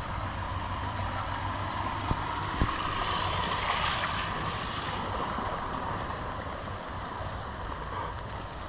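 Steady hiss of rain falling on forest foliage. It swells for a couple of seconds in the middle, and two light knocks sound a little before that.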